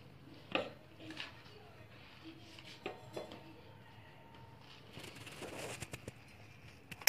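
Bread being torn by hand and pieces dropped into a stainless-steel mixer-grinder jar: faint scattered taps against the metal, with a short rustle of tearing bread about five seconds in.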